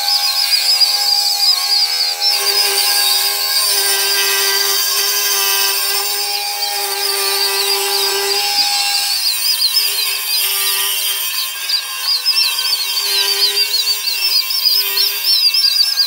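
Night insects chirping in a rapid, continuous high-pitched run, over a steady hum of several lower held tones.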